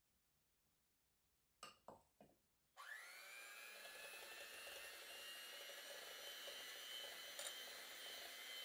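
Three short knocks, then an electric hand mixer switches on with a brief rising whine and runs steadily, its beaters whisking an egg and sugar mixture in a glass bowl; one click comes near the end.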